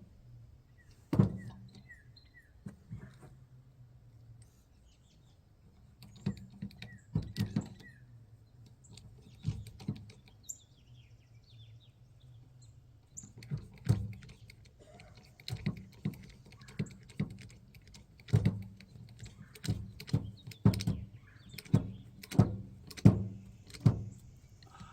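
Hand tools and electrical wiring being worked: scattered sharp clicks and knocks that come more often in the second half, over a steady low hum. A few faint short high chirps in the first few seconds.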